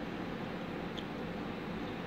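Steady room noise: an even hiss with a low hum underneath, and one faint tick about a second in.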